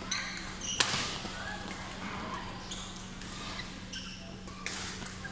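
Badminton rackets striking a shuttlecock during a doubles rally, one sharp loud crack about a second in and lighter hits later, with short squeaks of court shoes on the floor. A steady low hum runs underneath.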